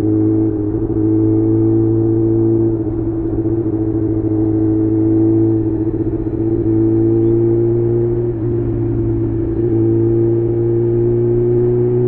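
Kawasaki ZX6R inline-four sport bike engine running through a Leo Vince aftermarket exhaust, cruising at fairly steady revs. The pitch dips briefly a few times and rises slowly toward the end.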